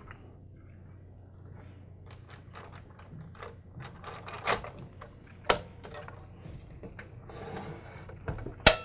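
Light clicks and taps of the miter saw's molded plastic handle housing as its top half is fitted back into place, with a few sharper clicks about four and a half, five and a half and eight and a half seconds in.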